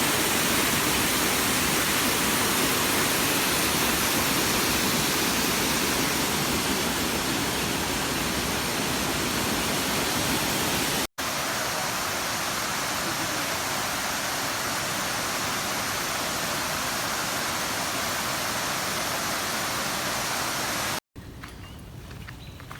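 Waterfall: a steady rush of falling water. It cuts out for an instant about eleven seconds in, and again near the end, after which it is much quieter.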